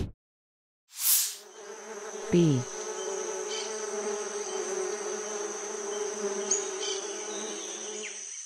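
A bee buzzing in a steady drone. It begins just after a short rush of noise about a second in and stops at the very end.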